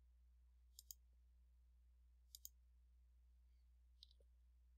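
Near silence with three faint computer mouse clicks about a second and a half apart, each a quick double tick, over a low steady hum.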